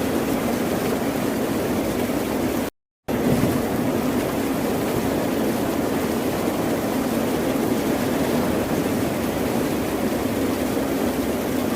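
Steady rushing noise of ocean surf, even and without distinct wave crashes, cut by a sudden total dropout of about a third of a second roughly three seconds in.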